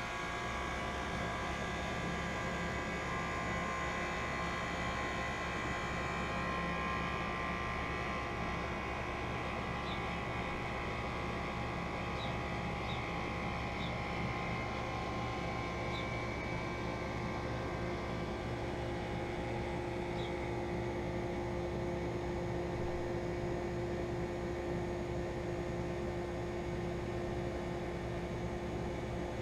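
2001 York 2.5-ton central air conditioner's outdoor unit running steadily just after starting up: a steady compressor hum with the condenser fan, with a few faint short high ticks near the middle.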